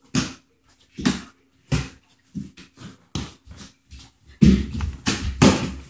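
Mini basketball bouncing on a hard floor: a few single bounces, then a run of lighter, quicker bounces at about four a second. Louder, busier thumps and scuffling fill the last second and a half.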